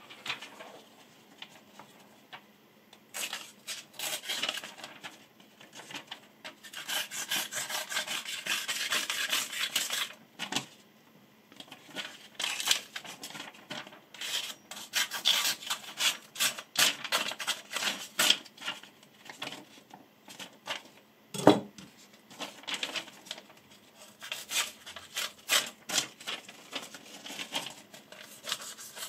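A kitchen chef's knife blade drawn repeatedly across the edge of a sheet of paper, scratching and rasping through it in uneven strokes with quiet pauses between them. The dull edge catches and tears the paper rather than slicing it cleanly. A single sharp knock sounds about two-thirds of the way through.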